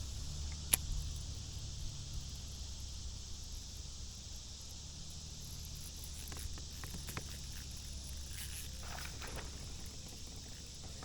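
Steady high-pitched insect chorus, with a single sharp click about a second in and a few faint knocks and rustles later on.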